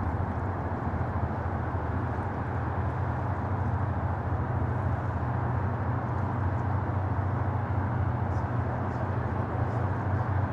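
Steady, unchanging low rumble with an even hiss over it: outdoor city background noise.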